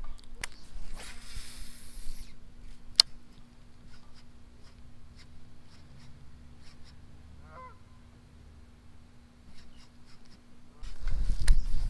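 Baitcasting reel and rod being handled while a lure is worked, giving a few sharp clicks and a soft hiss early on. A short bird call comes about midway, and a loud low rumble of handling noise starts near the end.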